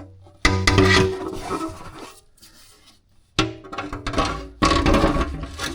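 Skid plate being handled under the car: scraping and rattling against the underbody in irregular bursts as it is hung on its retention bolt, starting suddenly about half a second in and again about three seconds later.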